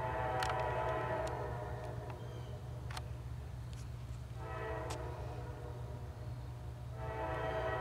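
Diesel freight locomotive's air horn sounding as the train approaches: a long blast, a second blast about four and a half seconds in, and a third starting near the end, over a steady low rumble.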